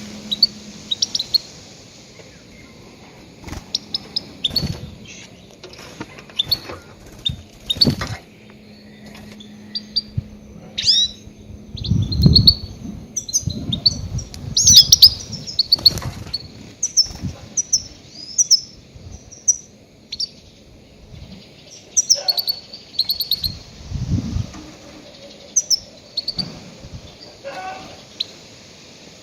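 Goldfinch calling: repeated quick, high twittering chirps in irregular bursts, the loud calls used as a lure for trapping grey-headed goldfinches. A few dull low thumps come in between, loudest about twelve seconds in and again near twenty-four seconds.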